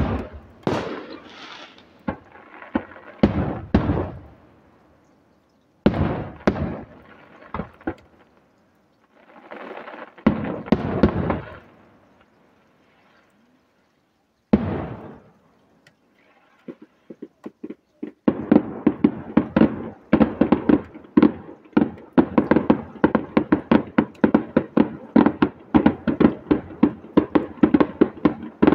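Aerial firework shells bursting with echoing bangs, spaced a second or two apart with short lulls. From about eighteen seconds in, a rapid barrage of sharp reports, several a second.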